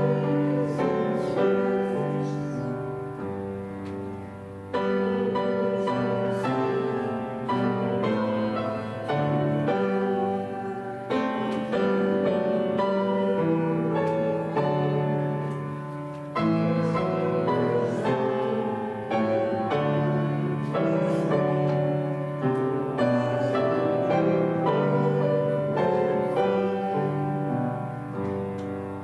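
Piano playing a slow hymn in block chords, phrase by phrase, each phrase dying away before the next begins.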